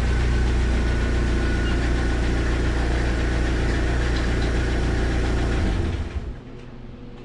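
Jeep TJ engine idling with a steady low rumble, then shut off about six seconds in.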